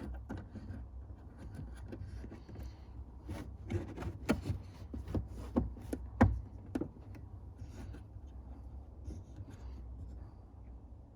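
Hands fitting a taillight's plastic retaining knob onto the housing: a run of small clicks and knocks with some rubbing and scraping of plastic, busiest in the middle, with one sharper knock a little after six seconds.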